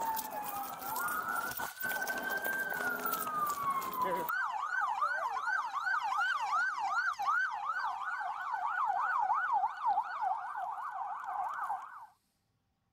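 Police sirens wailing in slow rising and falling sweeps, then from about four seconds in a siren on a fast yelp, about three cycles a second, which cuts off suddenly near the end.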